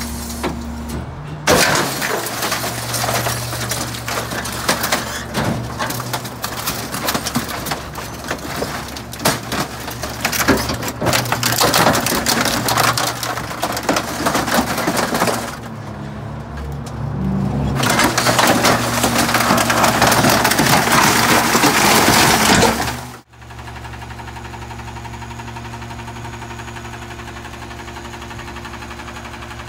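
McNeilus rear-loader garbage truck's packer blade crushing bulky waste, including electronics, in the hopper: dense cracking and breaking of plastic and wood over a steady hydraulic hum, with a short lull about halfway. About three-quarters through it cuts off sharply to the truck's engine idling steadily.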